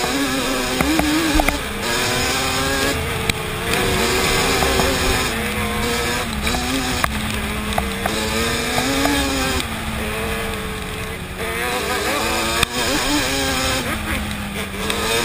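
Yamaha Banshee 350's twin-cylinder two-stroke engine being ridden hard, its pitch climbing and dropping again and again as the throttle is worked.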